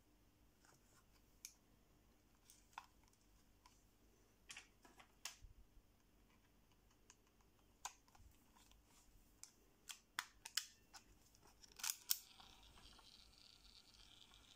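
Faint scattered clicks and handling noise from a plastic-and-metal Aiwa HS-F07 cassette Walkman being turned over in the hands, the sharpest clicks coming in a quick cluster about ten to twelve seconds in.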